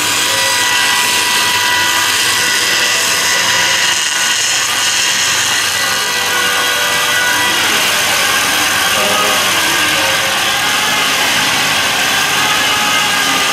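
Woodworking power tool running continuously, with a steady whine that shifts about halfway through.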